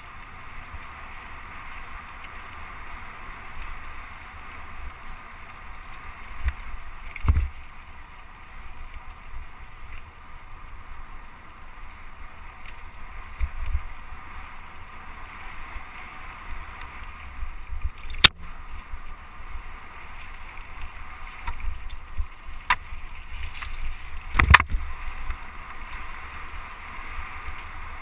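Mountain bike riding fast along a leaf-covered dirt trail: tyres rumbling and wind rushing over the microphone, with a few sharp knocks as the bike jolts over bumps.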